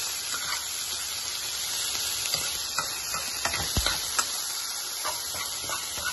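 Cabbage and codfish sizzling in a frying pan over a steady hiss, while a metal utensil stirs and scrapes through them, clicking against the pan at irregular moments.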